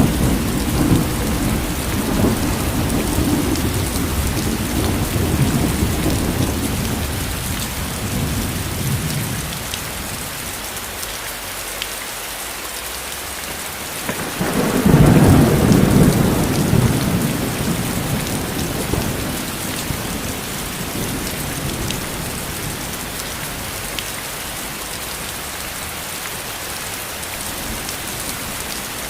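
Steady heavy rain with thunder: a low rumble fades over the first several seconds, and a louder roll of thunder comes about halfway through and dies away.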